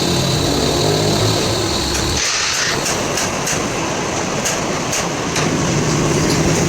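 A heavy truck engine running. About two seconds in the low hum drops away and a hiss takes over, with scattered ticks, before the engine hum comes back near the end.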